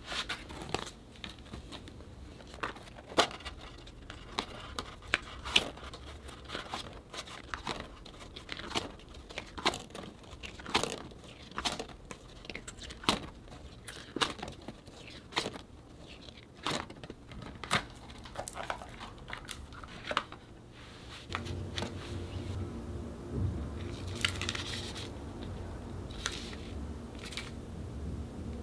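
Packaging being handled and opened: crinkling and tearing with many short sharp clicks and taps. A low steady hum joins about three quarters of the way through.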